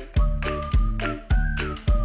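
Background music with a steady beat, a little under two beats a second, under a simple high melody.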